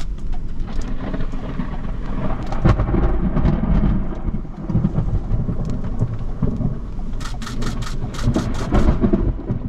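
Thunder rumbling, swelling about three seconds in, while raindrops tap on the vehicle's windshield and roof, in a heavier flurry near the end.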